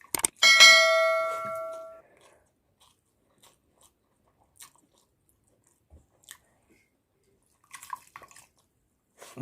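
A metal dish or utensil clinks once, ringing with a clear metallic tone that fades over about a second and a half. Faint sounds of chewing and crunching on fried food follow, with a short cluster of bites near the end.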